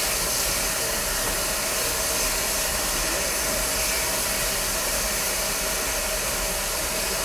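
Steam locomotive venting steam while standing, a steady hiss that cuts off suddenly at the end.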